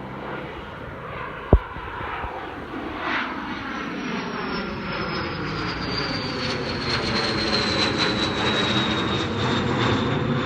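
Jet aircraft climbing out after takeoff, its engine noise growing steadily louder, with a high whine that slowly falls in pitch. A single sharp knock about one and a half seconds in.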